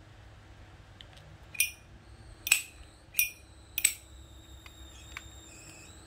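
Brass Zippo-style petrol lighter lid being flicked open and snapped shut: four sharp metallic clinks, the characteristic "keng keng", each with a ringing tail, followed by a couple of faint ticks.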